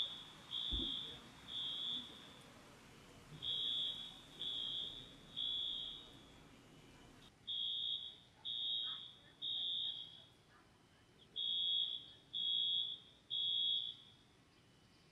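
Fire alarm sounding in the temporal-three pattern: three high beeps about half a second each, a short pause, then three more, repeating steadily.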